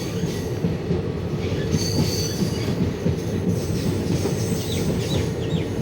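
Passenger train running along the track, heard from on board: a steady low rumble of the wheels and carriage, with a faint high wheel squeal about two seconds in.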